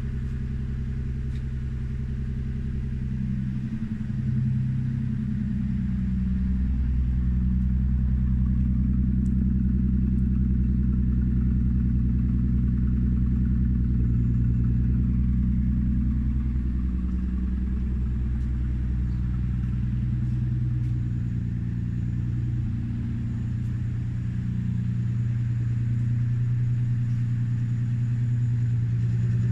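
Toyota 1G-GTE twin-turbo inline-six car engine running steadily, its low note shifting a little a few times.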